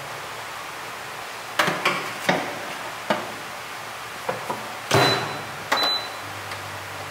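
Countertop air fryer oven being loaded and started: several knocks and clatters as the food rack goes in, a loud clack as the door shuts about five seconds in, two short high beeps from the control panel, then the low hum of its fan starting near the end.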